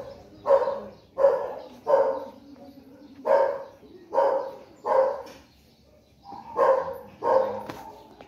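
Small white dog barking repeatedly: eight loud barks in three bunches, three, three and then two, with a short pause before the last pair.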